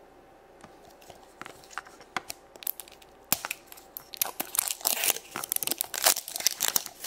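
A plastic wrapper sleeve crinkling and tearing as it is peeled off a toy ornament ball, with scattered sharp crackles that become dense and louder from about halfway in.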